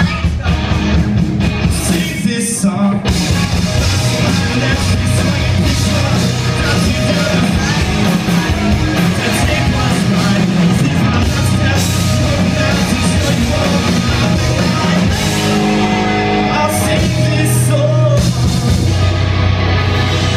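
Rock band playing live and loud, with singing over it.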